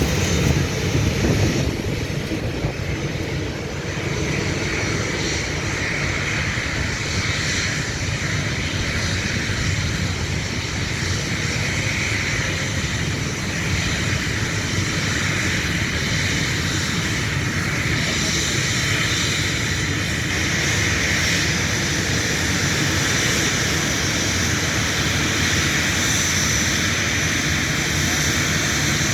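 Boeing 737-800 jet engines (CFM56 turbofans) running, a steady, loud jet noise with a hiss on top that holds level throughout.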